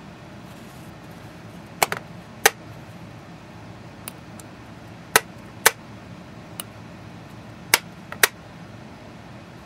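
Sharp clicks from a small piezo buzzer element glued to a plastic condiment-cup resonator, as it is tapped and its electrode is shorted with a wire: about seven loud clicks and a few faint ones, irregularly spaced in small clusters.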